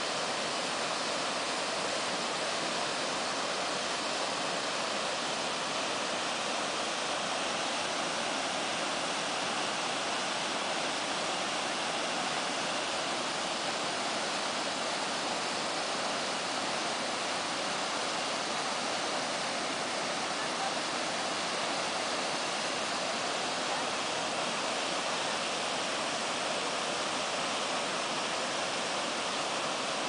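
Kaveri river waterfall tumbling in steps over rock ledges: a steady, unbroken rushing of water, strong in the hiss and weak in the low rumble.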